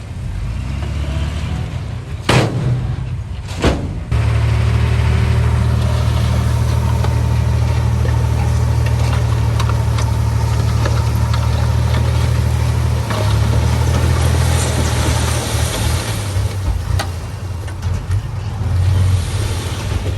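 Heavy construction machine's diesel engine running. Two sharp knocks come about two and three and a half seconds in. The engine then comes on much louder and heavier about four seconds in and holds steady, with a shift in its note about thirteen seconds in.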